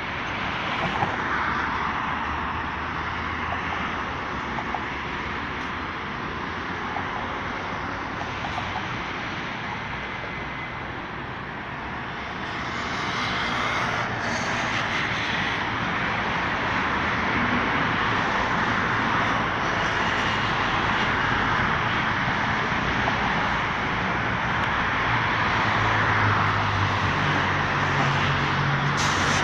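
Steady city road traffic: cars and vans driving past on a multi-lane street, a continuous rush of engines and tyres that grows a little louder about halfway through, with a deeper engine hum near the end.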